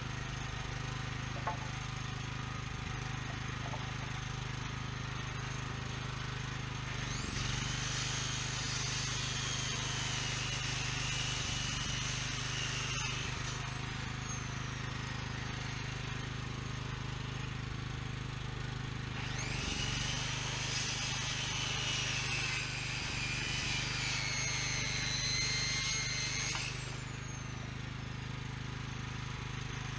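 Budget Harbor Freight circular saw making two cuts through rafter lumber. Each time it spins up to a high whine that wavers and dips as the blade cuts, then winds down with a falling whine when released. A portable generator runs steadily underneath.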